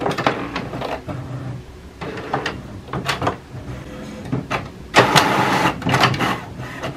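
HP Smart Tank 675 inkjet printer running a print job: mechanical whirring and clicks, loudest for about a second and a half starting about five seconds in.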